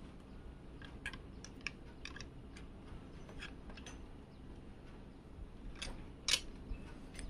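Small scattered clicks and taps of metal mounting brackets being handled and fitted onto an AIO liquid cooler's pump head, with one louder sharp click about six seconds in.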